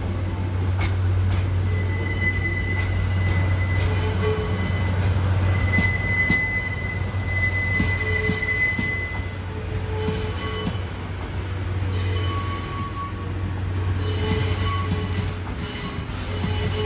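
Wheels of blue passenger coaches rolling slowly through curved station track, squealing against the rails in long high squeals that come and go, with occasional clicks over the rail joints and a steady low hum underneath.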